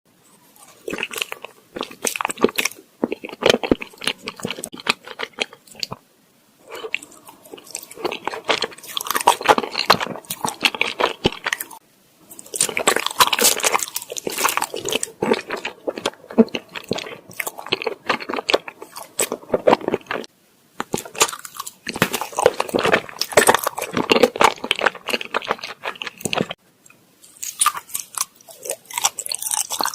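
Close-miked biting and chewing of soft fruit-shaped rice cakes, in bouts of a few seconds separated by four brief pauses.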